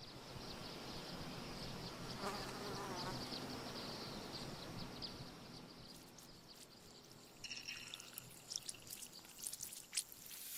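Faint sound-effects ambience with insects buzzing, then scattered sharp clicks in the last few seconds.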